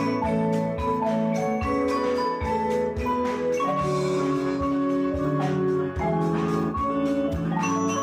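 Instrumental ensemble music with marimba playing the melody over a drum kit beat.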